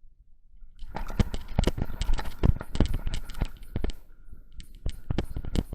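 Close rustling, crackling and irregular knocking: a head-mounted camera being jostled and handled among dry grass and bushes, with many sharp clicks starting about a second in.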